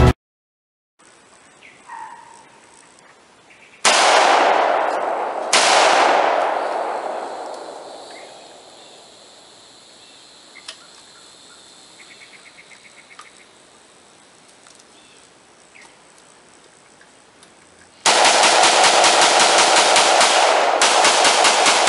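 Two loud blasts about a second and a half apart, each dying away slowly, then a long stretch of rapid automatic gunfire starting near the end.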